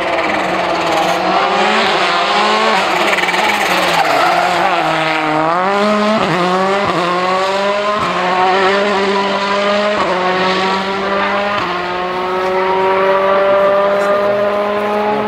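World Rally Car's turbocharged 1.6-litre four-cylinder engine at full effort. The engine note wavers and dips, then climbs through several quick upshifts, with tyres squealing as the car slides.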